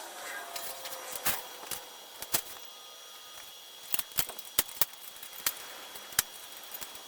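Scattered light clicks and taps at uneven spacing, sparse at first and coming more often after about four seconds, like small tools or parts being handled.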